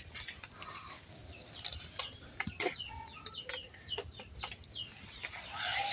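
Chickens clucking in short, scattered calls, mixed with a few sharp clicks.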